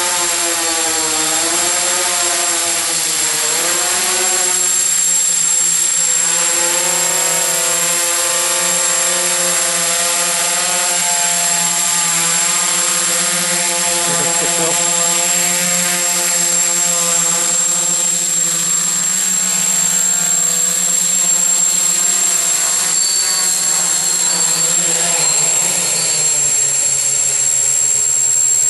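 Hexacopter's six electric motors and propellers whirring steadily as it descends under automatic return-to-launch control, the pitch wavering as the controller trims the motors. Near the end the pitch drops as the copter sets down on the ground, propellers still spinning.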